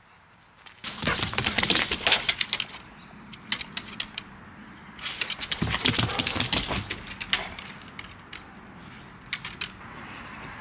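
Dog running through dry leaves in two bursts of rapid crunching and jingling clatter, a second or two each, about a second in and again around five seconds in, with scattered lighter ticks between.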